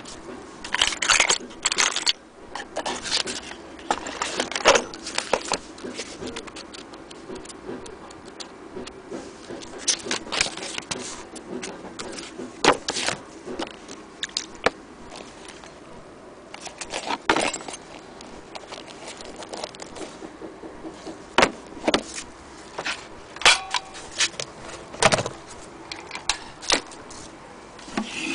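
Handling noise: irregular clicks, clacks and rustles as small sewing machine accessories, a cardboard accessory box and papers are picked up and moved about on a tabletop, over a faint steady hum.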